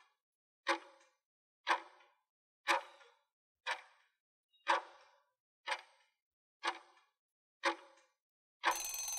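Countdown timer sound effect: a clock-like tick once a second, then a longer ring lasting about a second near the end, marking time up.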